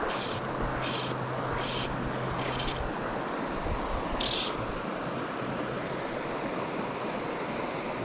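Fly line being stripped in by hand while playing a hooked chub: short hissing swishes about every 0.7 s for the first three seconds, then one more about four seconds in, over a steady rushing of river water.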